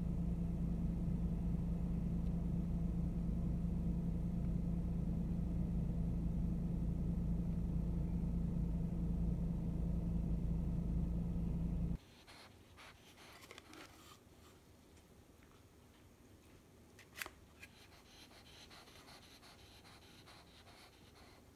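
Steady low rumble of a car cabin with a constant hum. About halfway through it cuts off abruptly, giving way to a quiet room with faint handling rustles and one sharp click.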